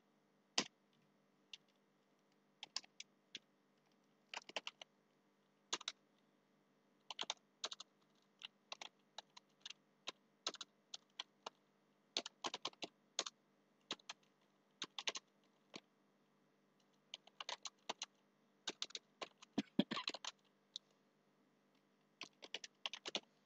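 Computer keyboard keys clicking as text is typed, in short irregular runs of keystrokes with brief pauses between them.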